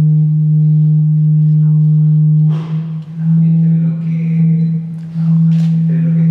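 Sustained low electronic drone played from a laptop and keyboard synthesizer, holding one steady pitch with a few overtones. It drops out briefly about two and a half seconds in and again around five seconds, with short hissing sweeps laid over it.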